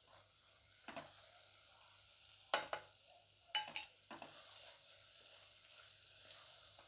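Hyacinth beans, grated coconut and spice powder sizzling in oil in a pan while being stirred, with a steady hiss. A few sharp knocks of the spoon against the pan stand out near the middle.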